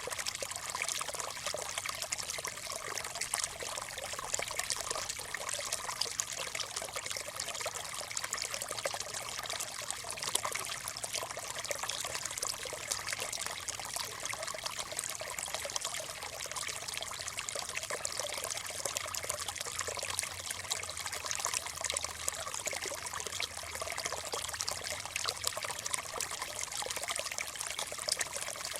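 Small stream trickling and burbling over stones, a steady continuous babble of running water.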